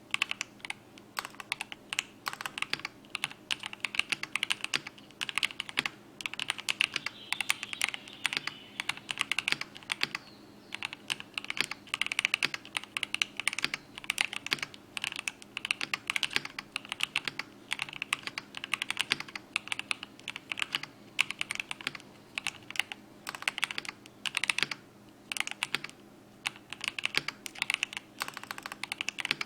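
Typing test on a mechanical keyboard fitted with TTC Tiger keyswitches: a continuous fast run of key clicks, with short breaks about ten seconds in and again near twenty-five seconds.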